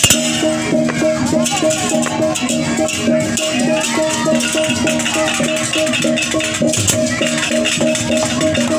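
Balinese gamelan music: metal-keyed instruments play a fast, repeating figure over continuous rattling cymbals.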